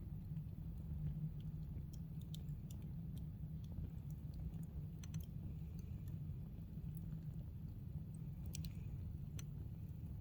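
Wood campfire crackling: irregular sharp snaps and pops over a steady low rumble.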